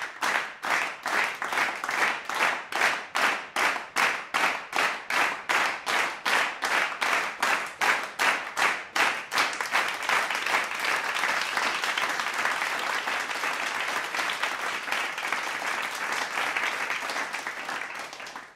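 A crowd clapping in unison, about three claps a second, then breaking into continuous applause about nine seconds in, which tapers off near the end.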